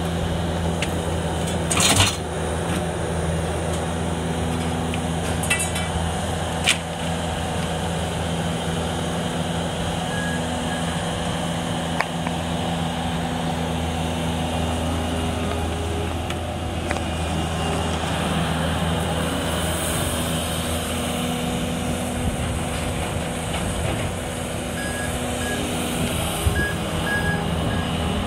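Bobcat skid-steer loader's diesel engine running steadily as it carries bulk junk in its grapple bucket, with a garbage truck idling alongside. A loud crash of junk being grabbed about two seconds in, a few lighter knocks, and a few short high beeps around ten seconds in and again near the end.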